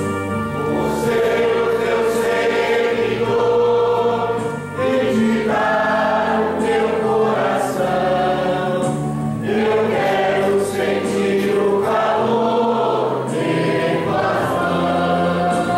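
A congregation and choir singing a hymn together over sustained electronic keyboard chords, the offertory hymn of a Mass, in phrases lasting a second or two.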